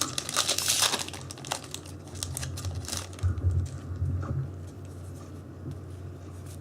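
Foil trading-card booster-pack wrapper crinkling and tearing as a pack is opened, loudest in the first second and a half, then fainter rustling over a low steady hum.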